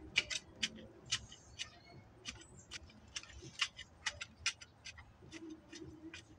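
A run of sharp, high clicks, about two to three a second at uneven spacing.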